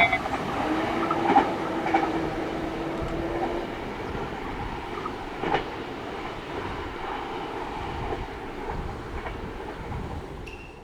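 Train on the JR Hokuriku Main Line running past a level crossing, wheels clicking over the rail joints, with a steady hum for the first few seconds; its noise slowly thins out.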